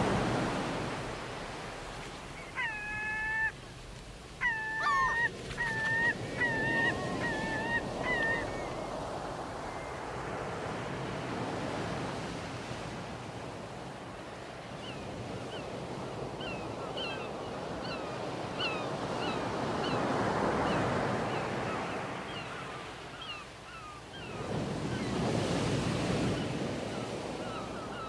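Sea surf washing in and swelling in waves, with birds calling over it: a burst of loud calls a few seconds in, then a long run of short chirps in the second half.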